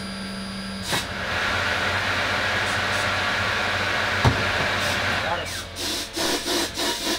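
Pneumatic tire-changing machine: a low hum stops with a click about a second in, then a steady hiss of compressed air runs for about four and a half seconds before dying away into a few short, irregular sounds.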